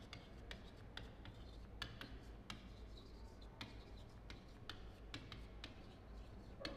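Chalk writing on a chalkboard: a string of faint short taps and scrapes as words are written stroke by stroke.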